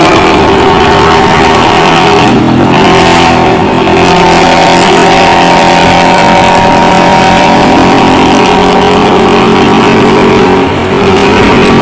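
Luragung bus's diesel engine running loud through a modified 'ngorok' growling exhaust, a steady drone whose pitch shifts about two to four seconds in.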